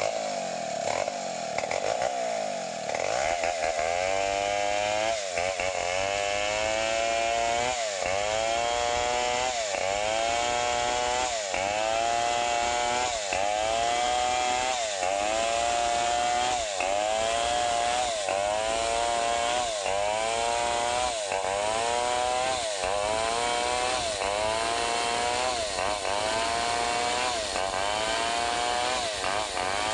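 Stihl 070 two-stroke chainsaw ripping along a log. It opens at a steady high rev for a few seconds, then under load its pitch repeatedly sags and recovers, roughly every second and a half to two seconds.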